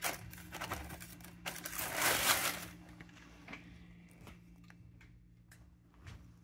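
Packing paper in a shoebox crinkling and rustling as it is pulled out, loudest about two seconds in. After that come fainter scattered rustles and clicks as a shoe is handled.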